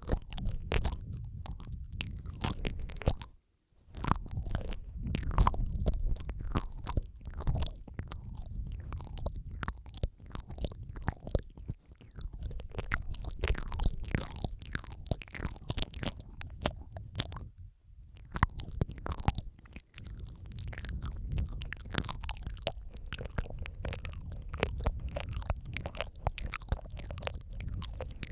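ASMR mouth sounds close to the microphone: a dense run of wet clicks, smacks and lip sounds, layered over one another over a steady low rumble, with brief pauses twice.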